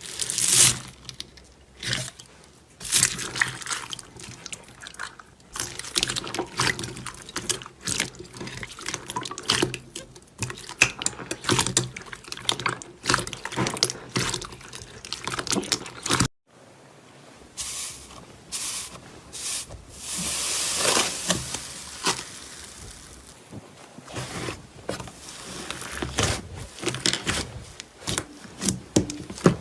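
Slime being squished and pressed by hand, making wet clicking and popping crackles. The sound cuts out briefly about halfway through, then resumes.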